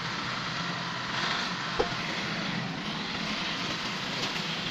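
Steady low machine hum under general workshop noise, with one sharp knock a little under two seconds in.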